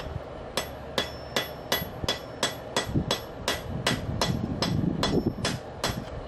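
Hand hammer striking a hot railroad-spike tomahawk head on a steel anvil in a steady run of about three blows a second, each blow with a short metallic ring, forging the head's back end.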